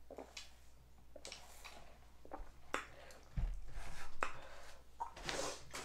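Sipping sounds through a straw, then a dull thump about three and a half seconds in as a large paper drink cup is set down on the table. Small clicks and rustling handling noises follow near the end.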